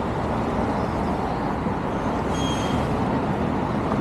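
City street traffic noise: a steady rumble of passing vehicles, with a brief faint high tone about two and a half seconds in.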